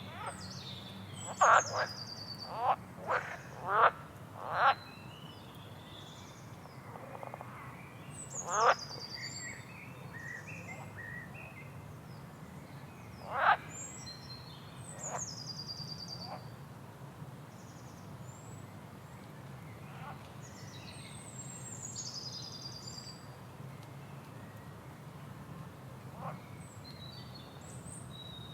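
Frogs croaking and birds singing. A quick run of loud frog croaks comes in the first few seconds, then single croaks now and then, while high falling bird trills repeat throughout over a steady low hum.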